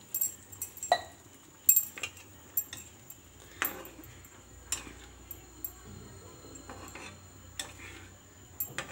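A metal spoon stirring masala gravy that has just been thinned with water in a frying pan, knocking and scraping against the pan in irregular clinks.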